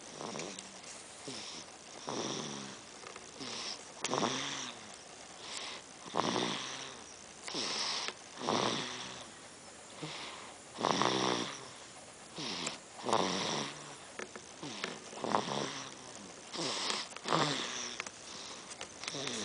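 A baby snoring: a rasping, buzzing snore on each breath, coming about every two seconds.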